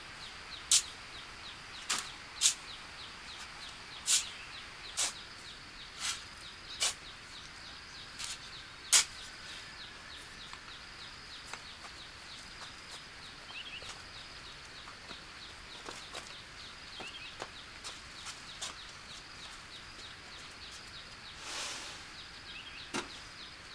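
Sharp taps and knocks at irregular intervals, about ten in the first nine seconds and sparser and fainter after, over a steady high-pitched background buzz.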